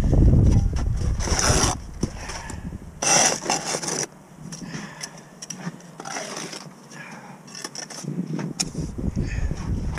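Steel brick trowel scraping mortar against concrete blocks in several short separate scrapes, with wind rumbling on the microphone in the first couple of seconds.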